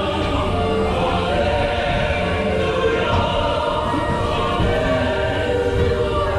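Choral music with sustained voices over a steady bed, played through a dark ride's onboard soundtrack aboard Spaceship Earth.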